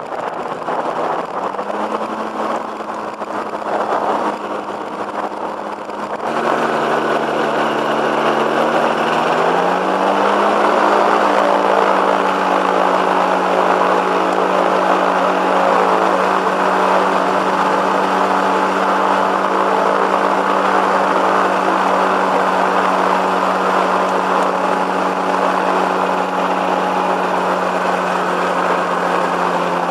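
Two-stroke microlight engine and propeller running at low power while taxiing on grass. Its note rises a little about ten seconds in, then holds steady. Wind buffets the microphone during the first few seconds.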